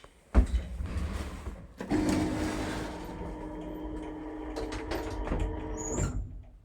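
Old Soviet passenger lift starting off: a sharp clunk about half a second in, then the AS62 hoist unit runs up to a loud, steady mechanical hum and whine, with clicks over it. The hum dips briefly near the end and picks straight up again.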